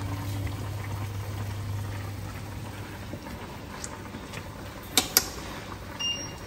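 Water boiling in stainless steel pots of green vegetables, over a steady low hum. About five seconds in, two sharp clicks as chopsticks knock against a pot, and near the end a short electronic beep from the cooktop's controls.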